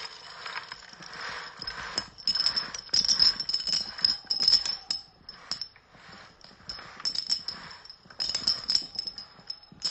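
Confetti being shaken out and scattered onto a rug: an irregular rattling and rustling in bursts, loudest in two spells.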